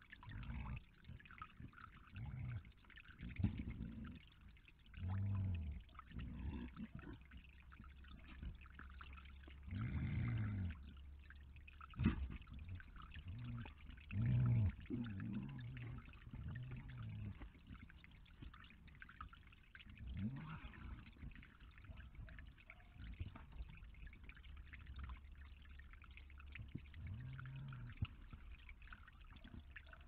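Steady trickle of water from a small garden fountain into a pond, with a series of short, low-pitched animal grunts scattered through it and a single sharp knock about twelve seconds in.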